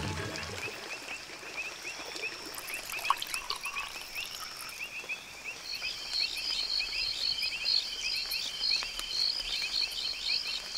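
Night chorus of frogs and insects: rapid, repeated chirping calls that grow fuller and louder about six seconds in.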